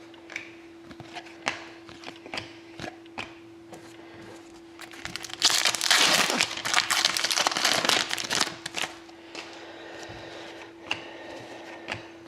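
A hockey card pack's wrapper being torn open and crinkled for about three seconds midway, amid scattered light clicks and snaps of trading cards being handled and flipped.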